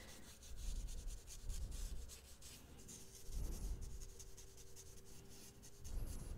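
Wet paintbrush brushing over watercolor-pencil colour on paper: a faint, soft rubbing in a few separate strokes.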